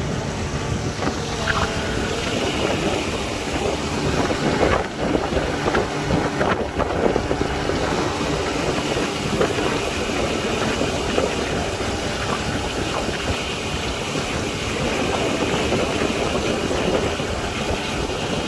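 Outboard motor of an open fishing boat running steadily under way, with wind rushing over the microphone.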